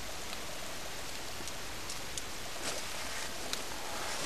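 Steady hiss of fine, small-flaked snow falling, with a few faint scattered ticks.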